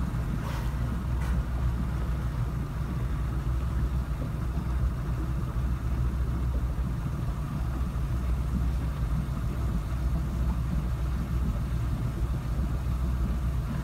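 Boat's engine running steadily with a low, even hum, heard from on board.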